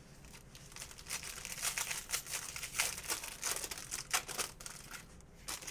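Plastic wrapper of a trading-card pack being torn open and crinkled: a dense run of crackles.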